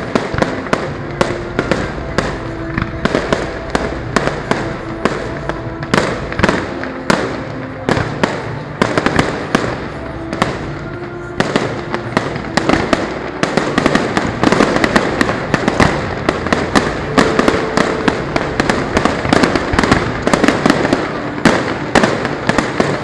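Aerial fireworks display: a rapid succession of sharp bangs and crackling shell bursts. About 13 seconds in, it thickens into a dense, almost continuous barrage of bangs and crackle.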